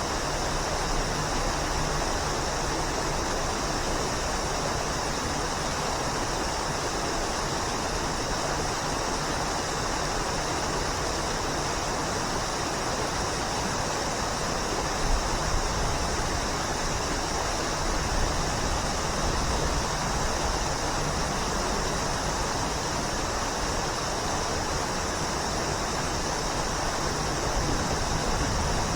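Waterfall: a steady, full rush of falling water, with slight low surges now and then.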